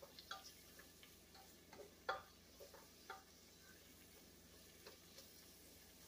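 Faint, scattered clicks and scrapes of a spatula stirring chopped onions sautéing in a soup pot, the clearest tap about two seconds in.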